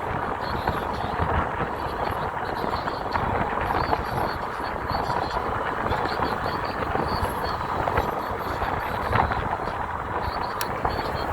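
Steady wind noise on the microphone and road noise from an e-bike being ridden, an even rumble and hiss with a few faint clicks.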